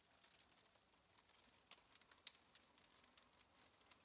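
Near silence, with a few faint scattered clicks.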